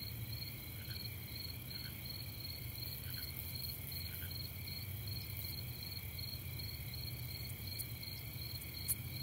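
Steady night chorus of calling insects or frogs, a high pulsing trill repeating a few times a second over a steady high whine. A low hum runs underneath.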